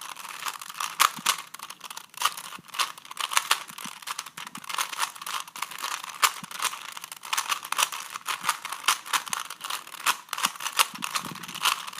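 A 3x3x3 Rubik's cube being turned fast in a timed solve: its plastic layers click and clack in quick, irregular runs of several turns a second.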